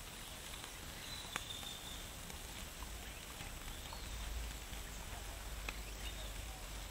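Outdoor rural ambience: a steady faint hiss with a thin high insect-like tone, a few small clicks and knocks, and a low rumble around the middle.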